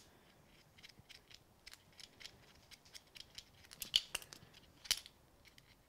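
Faint, scattered ticks and scratches of a gold paint pen's tip run along the edge of a small die-cut cardstock word held in the fingers, with two louder clicks about four and five seconds in.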